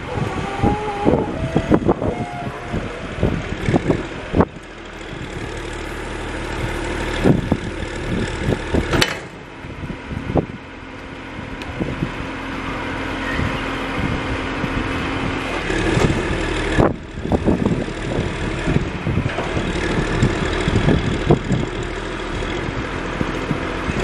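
John Deere backhoe loader's diesel engine running while its hydraulics raise the front loader arms, with an uneven rumble and scattered knocks over a steady hum.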